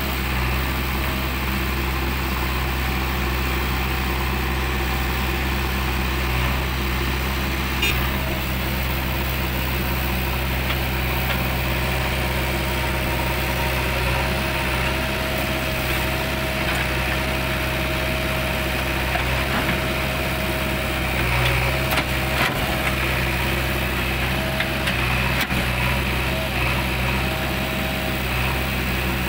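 JCB 3DX backhoe loader's diesel engine running steadily as the backhoe digs and loads soil, with a thin whine that comes and goes.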